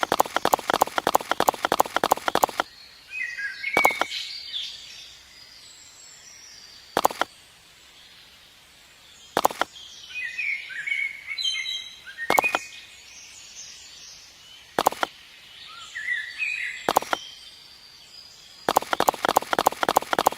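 Birds chirping in short calls, cut through by sharp clicks: a fast run of clicks at the start and again near the end, and single clicks every two to three seconds in between.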